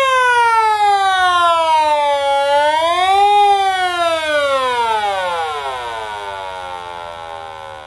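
ContiTest 503 continuity tester whistling as it charges a 470 µF electrolytic capacitor. The tone falls steadily in pitch, rises briefly about three seconds in, then sinks lower and fades away as the capacitor charges. That falling-away tone is the sign that the capacitor is in good order.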